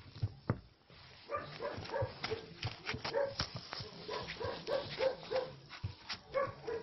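Puppies giving short, high-pitched yips over and over, starting about a second in, with scattered small clicks.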